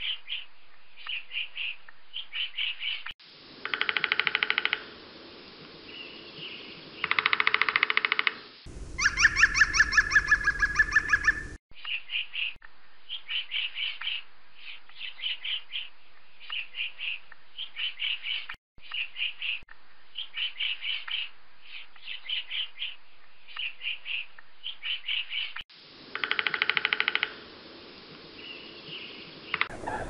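Woodpecker calls: short calls repeated in quick groups, broken three times by bursts of rapid drumming on wood, with a louder run of calls about nine to eleven seconds in.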